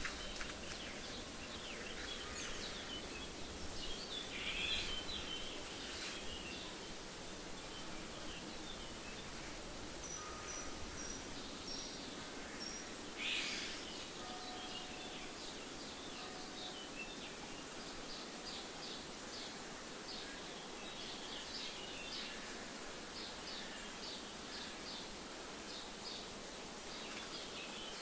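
Birds chirping and singing in many short calls over a steady hiss, with flies buzzing.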